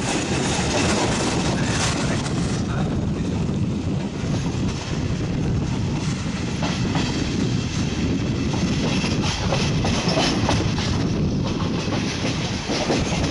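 Regional passenger train rolling out of a station, heard from an open window of one of its coaches: steady running noise with wheels clacking over rail joints and points.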